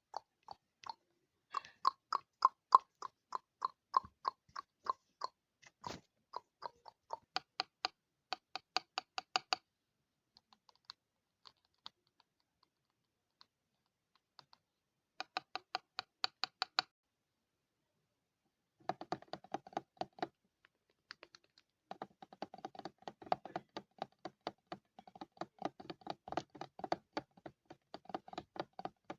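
Fingers tapping quickly on a mirror's glass, in fast runs of sharp little taps broken by a couple of short pauses.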